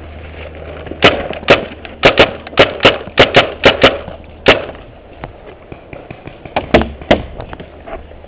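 Paintball markers firing: a quick string of about a dozen sharp pops, a pause, then a few more pops near the end.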